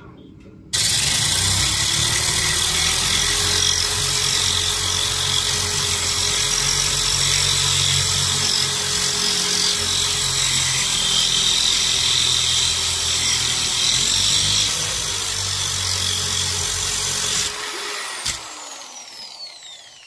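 Electric drill with a water-cooled core bit grinding a round hole through window glass. It starts suddenly about a second in and runs steadily with a grinding hiss over a motor whine. Near the end it is released, and the whine falls in pitch as the motor spins down.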